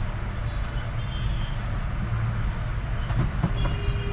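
Steady low hum and rumble, with faint short high tones about a second in and again near the end.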